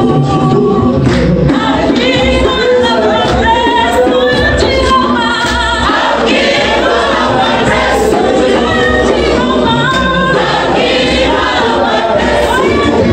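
Church choir singing a gospel song together, many voices at once.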